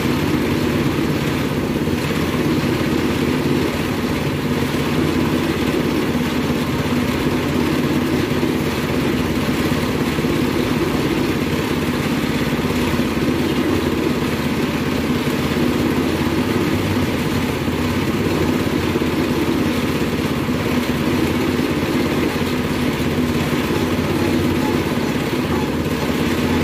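Motorized sugarcane juice press running steadily while sugarcane stalks are fed by hand through its steel rollers and crushed.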